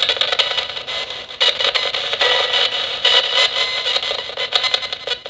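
Nanocom Coffin Edition spirit radio sweeping through stations: choppy radio static with built-in reverb, broken into short slices as the sweep jumps, with a brief dip a little over a second in.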